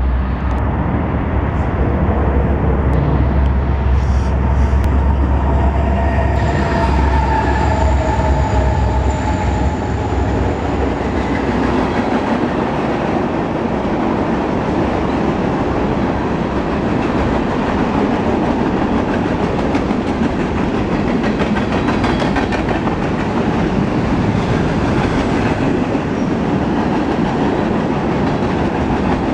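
Freight train passing close by: a heavy low rumble from the approaching locomotive over the first dozen seconds, with a few thin high tones about six to ten seconds in, then the steady rolling noise and light clatter of covered hopper cars going by.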